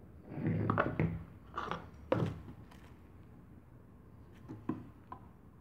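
Handling noise from a brushless camera gimbal being tilted and shaken by hand: a cluster of knocks and rubbing in the first two seconds or so, then a few lighter clicks and taps near the end.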